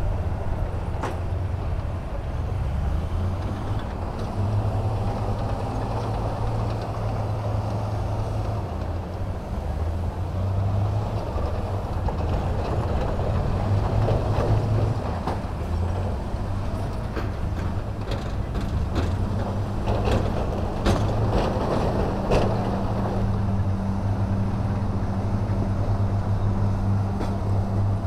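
Heavy diesel earthmoving machinery running, the engine note shifting up and down under changing load. A run of sharp clanks comes about two-thirds of the way through.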